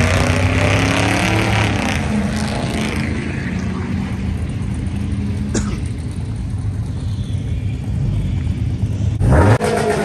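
Car engines rumbling through their exhausts, with one engine revved sharply near the end.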